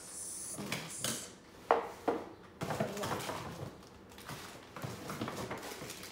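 Cardboard gift box being opened and handled: rustling with a few sharp clicks and knocks, the loudest a little under two seconds in.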